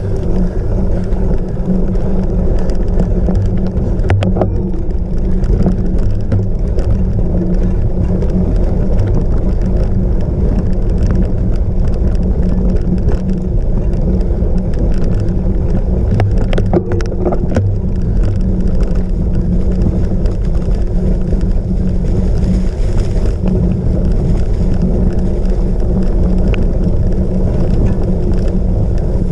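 Steady rumble of a cyclocross bike being ridden hard over rough off-road ground: tyre noise and frame rattle, with a few sharp knocks about four seconds in and again around seventeen seconds.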